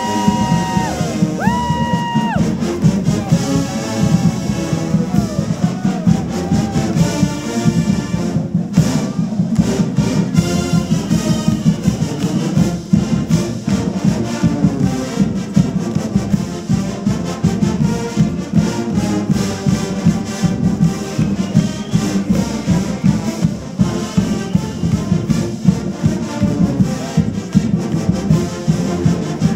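Marching band playing brass and drums: two held brass chords open, then a rhythmic brass tune over a steady drum beat.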